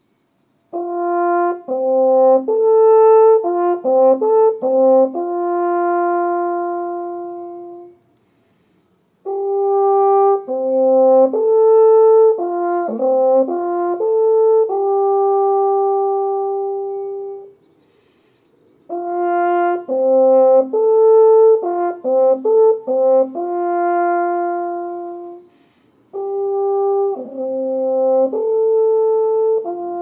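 Cornu ligneum, a hand-held wooden alphorn with a square bore, playing four short melodic phrases separated by brief pauses. Each phrase moves through a few notes and ends on a long held note.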